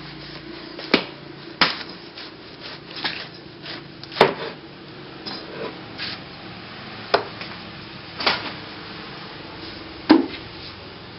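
A large kitchen knife chopping into a whole jackfruit. It makes irregular sharp knocks, about six loud ones with softer ones between.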